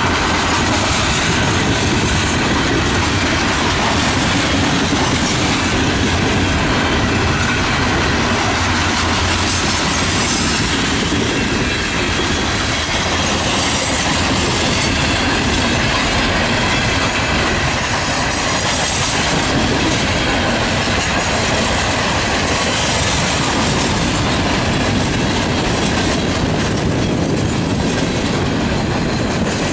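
Norfolk Southern coal train's hopper cars rolling past at a steady, even level, their steel wheels running over the rails.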